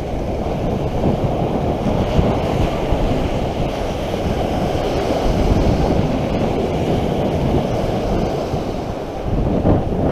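Small waves breaking and washing up a shingle beach, with wind buffeting the microphone in a steady low rumble.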